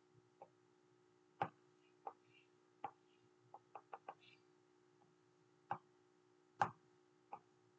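Scattered light clicks and taps of a stylus on a tablet screen, about a dozen at irregular intervals, over a faint steady hum.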